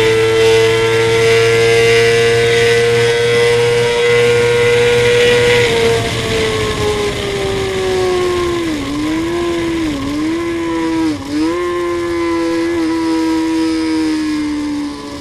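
Suzuki GSX-R inline-four sportbike engine held at high, steady revs under full throttle with wind rushing past, then the pitch falls away under braking, dipping and recovering three times as the rider shifts down, and settles to a lower steady note through the corner.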